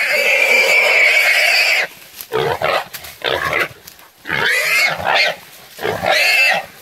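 Hog squealing in distress as catch dogs hold it: one long, loud squeal of nearly two seconds, then several shorter squeals.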